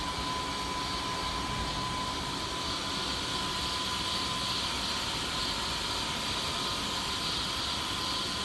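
Steady running noise of a CNC cylindrical grinder's hydraulic unit: an even hum and hiss with a thin, high, steady whine that fades out near the end.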